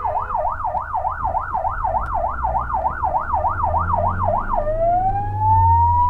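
Fire engine's siren heard from inside the cab, yelping fast at about four sweeps a second. About three-quarters of the way in it switches to a slow rising wail, over the low drone of the truck's engine.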